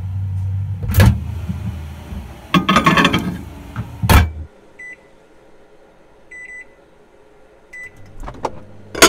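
Microwave oven running with a low hum, broken by a few loud knocks and a clatter; the hum stops and the oven beeps three times, about a second and a half apart. A low hum and a few clicks come back near the end.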